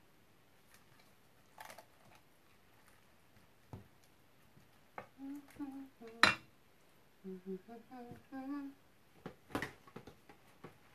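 A few clinks and knocks of kitchen utensils against dishes, the loudest a sharp knock about six seconds in. Between them come short bits of soft humming.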